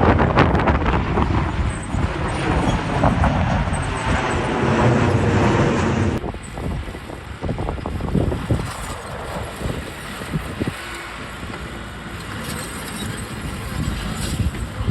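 Heavy earthmoving machinery running, the engines of dump trucks or a bulldozer, with wind on the microphone; the sound changes abruptly about six seconds in and turns somewhat quieter, with scattered knocks.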